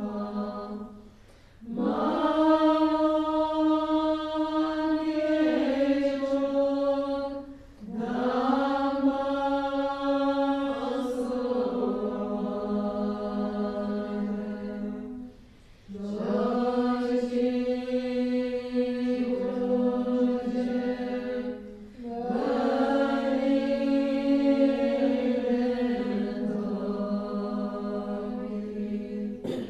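Group of women chanting a Tibetan Bön long-life prayer in unison. They sing long held phrases of a few stepped notes, each about six seconds long, with brief pauses for breath between them.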